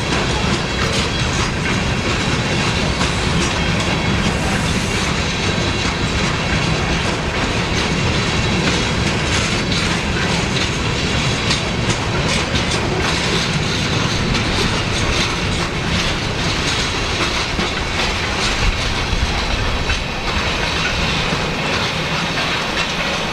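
Freight train cars rolling past close by, steel wheels clacking over the rail joints over a steady rumble, with a faint high wheel squeal at times. The low rumble eases near the end.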